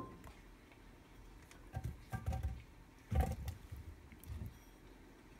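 Chopped tomato pieces tipped from a glass bowl into a stainless steel blender jar: a few soft, scattered thuds and light knocks, the loudest a little past the middle.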